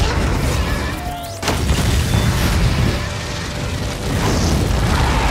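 Cartoon explosion sound effects from a bomb blast: a deep rumbling boom with a crackling roar of noise, and a second sudden blast about one and a half seconds in.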